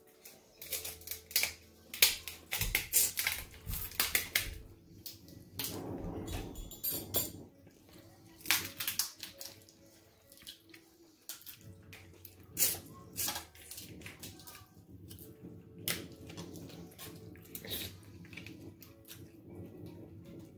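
Boiled crab-leg shells cracking and snapping as they are broken apart by hand, in a series of sharp irregular cracks, busiest in the first half, with a few clinks of dishes or cutlery.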